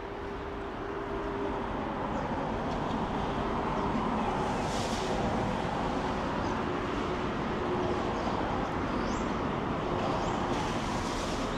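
Steady road traffic noise, a continuous rumble that grows a little louder over the first few seconds.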